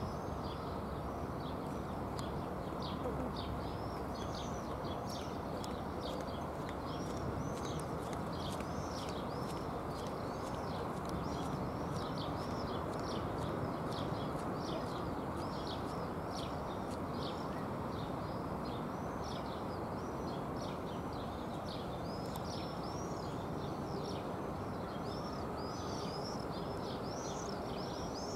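Distant jet noise from a Tupolev Tu-204-300 airliner's twin turbofans passing high overhead on descent: a steady, even rumble with no rise or fall. Over it, small birds chirp continuously, several short calls a second.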